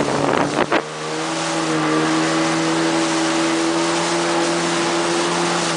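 Jet ski engine running steadily at speed, an even drone, with the rush of spray from its wake over it. A couple of short slaps in the first second before the drone settles.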